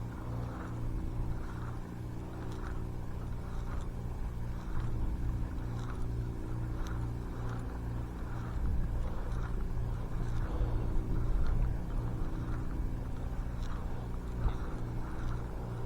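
A steady low mechanical hum, like a motor running, with a quick regular pulse in it and faint repeated ticks.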